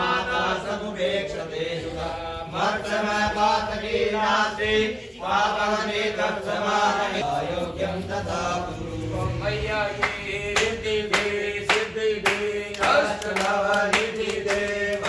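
Voices chanting a devotional song together over a steady low drone. About two-thirds of the way through, sharp rhythmic strikes (claps or percussion) join in at roughly two a second.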